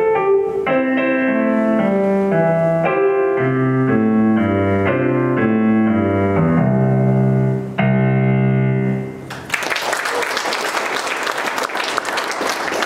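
An electronic keyboard with a piano sound plays a melody over a stepping bass line and ends on a long held chord about nine seconds in. An audience then breaks into steady applause.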